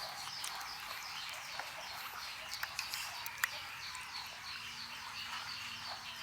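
Small birds chirping continuously, many short falling chirps overlapping, with a couple of faint sharp clicks.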